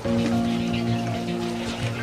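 Background music: a held chord of several steady notes comes in at the start, with a few faint short clicks over it.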